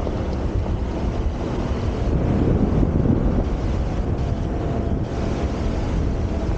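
Wind buffeting the microphone of a camera on a moving four-wheel-drive ute, over a low rumble of the vehicle on a dirt track. The noise swells for about a second a couple of seconds in.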